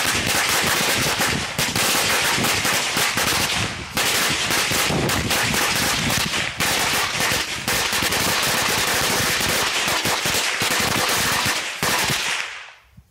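A 200-count string of Black Cat firecrackers going off: a long, continuous run of loud cracks that dies away near the end. A slow string, by firecracker standards.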